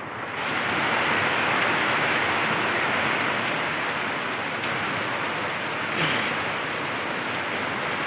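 Heavy rain falling steadily, a dense hiss that swells up about half a second in and then holds.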